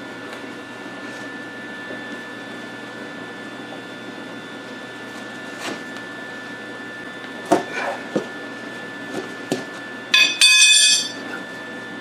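A tire being levered inside another tire with a steel tire iron: scattered knocks and rubber rubbing over a steady hum, then near the end a loud metallic clatter with ringing as the tire iron drops onto the concrete floor.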